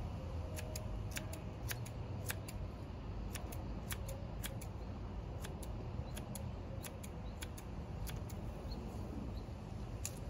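Kitchen scissors snipping fresh basil leaves, a crisp sharp snip repeated irregularly, often in quick runs of several snips a few tenths of a second apart, over a steady low background rumble.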